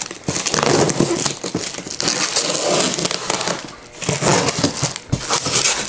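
Clear packing tape being pulled and crumpled off a styrofoam fish-shipping box: a run of loud crinkling and rustling with short pauses.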